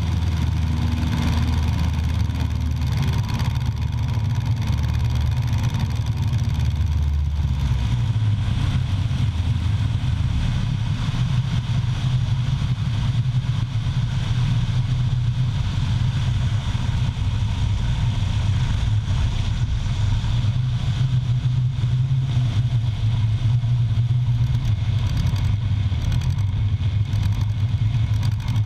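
An engine running steadily under a constant rush of wind noise, its drone stepping up in pitch about seven or eight seconds in and holding there.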